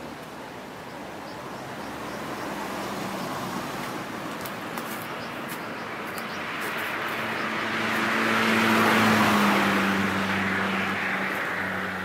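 Car on the road: a low engine hum under rushing road noise that swells to its loudest about nine seconds in, then fades.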